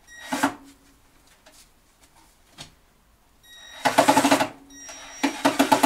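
Cordless impact driver hammering as it backs out Phillips-head screws: a short burst near the start, then two rapid rattling bursts of about a second each near the end.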